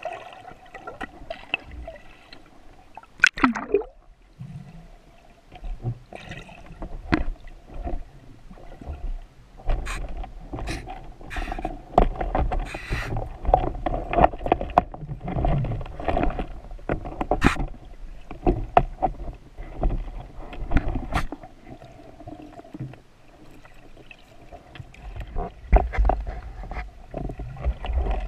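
Underwater sound picked up by an action camera mounted on a speargun: muffled water movement with many irregular sharp clicks and knocks, and a brief falling whoosh about three seconds in.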